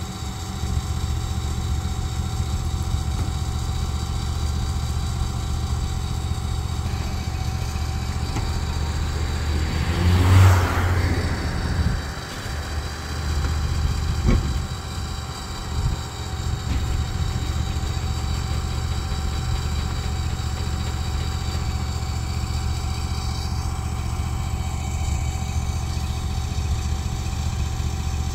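Mule shed mover's engine running steadily, with a louder swell about ten seconds in and a short knock a few seconds later.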